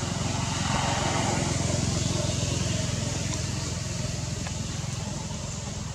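Low, steady engine rumble of a motor vehicle, swelling about a second in and slowly fading.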